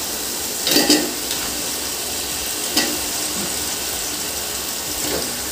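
Oil-rich tomato-onion masala sizzling steadily in a large biryani pot as raw chicken pieces are tipped in, with two louder clatters from the pot, about a second in and near three seconds.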